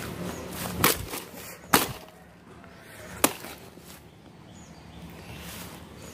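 Three separate chops of a blade into a fallen banana plant's stalk, the second the loudest.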